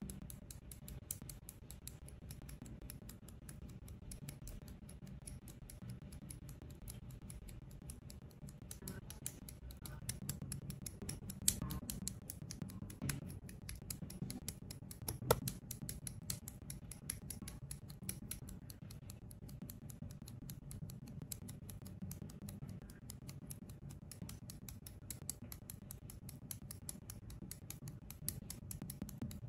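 Hobby side cutters snipping plastic model-kit parts off their sprues and trimming the nubs: a quick run of small clicks and snips, with a few sharper snaps about 11, 13 and 15 seconds in.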